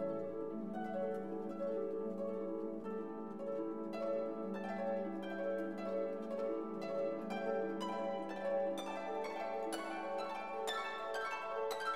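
Instrumental background music: held notes with plucked notes coming in, growing busier in the second half.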